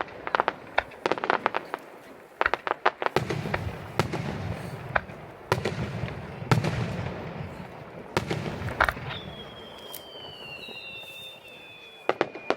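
Fireworks going off: clusters of rapid sharp cracks and bangs over a low booming rumble. From about nine seconds in, a long whistle slides slowly lower in pitch.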